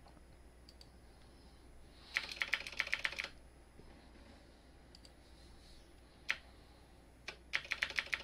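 Computer keyboard keystrokes in two quick runs of about a second each, with a single key press between them, as characters are deleted from a text field.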